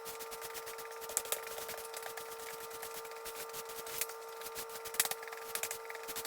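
A broom sweeping a floor: quick scratchy strokes of the bristles with a few sharper knocks, over a steady hum.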